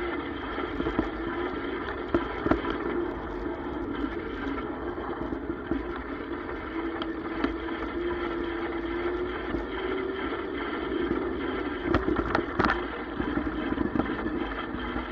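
Electric bike riding over a rough sandy dirt trail: the motor hums steadily, rising a little in pitch midway, under tyre rumble and frequent small rattles from bumps, with a few harder jolts near the end.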